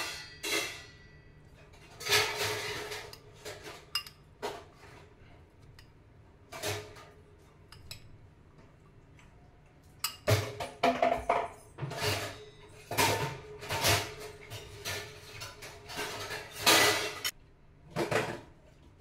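Metal spoon stirring a pea salad in a glass bowl, with irregular scrapes and clinks against the glass. They are sparse for several seconds in the middle, then come quick and close together before stopping near the end.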